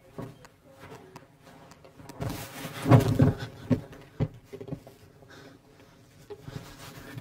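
A scuffle on a carpeted floor: clothing rustling and a heavy thump as a person is pushed down, loudest about three seconds in, then a few separate knocks.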